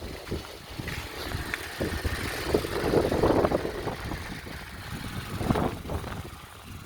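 Turbocharged Toyota 2TR-FE four-cylinder petrol engine (T3/T4 turbo) running, swelling louder for about a second around the middle.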